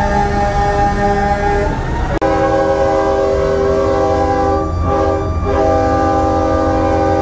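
Truck-mounted train horn blowing a loud, held multi-note chord. It cuts off about two seconds in and a new held chord starts at once, dipping twice briefly near the middle.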